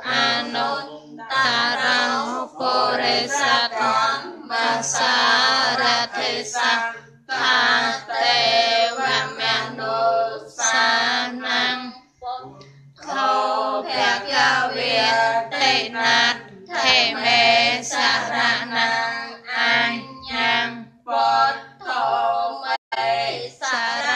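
Buddhist devotional chanting sung to a melody by voices, in phrases with a short pause about halfway through.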